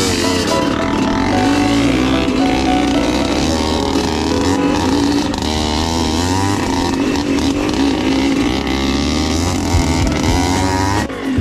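Dirt bike engine running close to the microphone, its pitch rising and falling with the throttle as the bike is ridden over rough trail.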